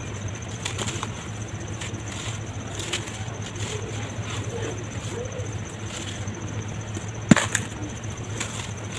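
Chunks of red dirt being crumbled, with scattered soft crackles and one sharp crack about seven seconds in, over a steady low hum.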